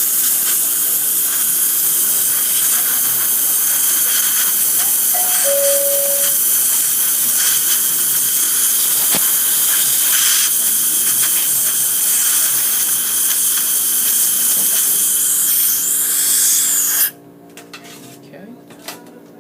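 Kinetic cavity preparation (air-abrasion) handpiece blasting abrasive powder at the tooth with compressed air: a loud, steady hiss that cuts off suddenly about 17 seconds in.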